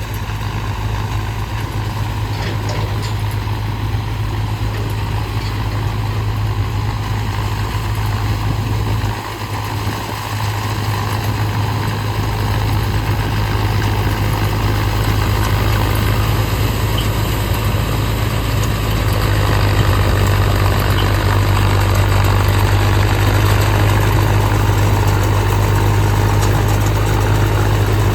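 Tractor diesel engine running steadily with a strong low hum while driving a Nippy45 mini combine harvester attachment. The sound dips briefly about nine seconds in and grows louder about two-thirds of the way through.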